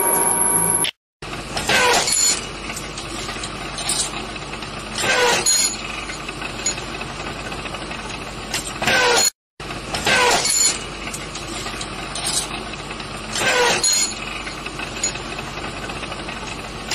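A machine working steel rebar, running steadily, with short, loud metallic scraping squeals every couple of seconds. It is preceded by a moment of CNC milling cutter whine that cuts off about a second in.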